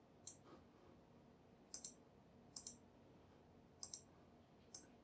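Faint computer mouse clicks, about five spread through a few seconds, several heard as a quick press-and-release pair.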